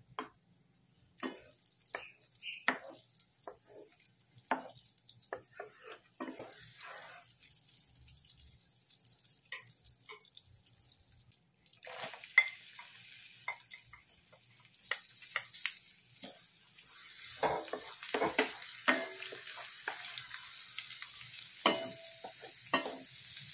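Butter sizzling as it melts in a nonstick pan, with a wooden spatula knocking and scraping against the pan. About halfway through, chopped garlic goes into the hot butter and the sizzle grows louder as it is stirred.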